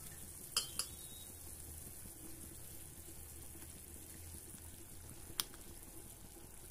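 Water at a rolling boil in a steel pot, a faint steady bubbling. Three short sharp sounds break it: two within the first second and one about five seconds in.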